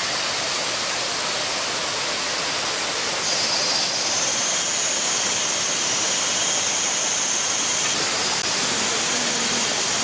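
Steady rushing of a rainforest stream and waterfall, with a high, thin insect drone joining in about three seconds in and dropping out a few seconds later.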